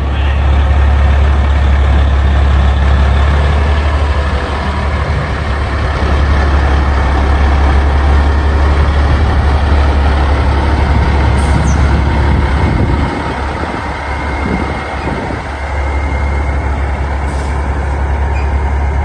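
A truck driving at road speed: a steady low engine drone with road and wind noise, easing off a little about two-thirds of the way through.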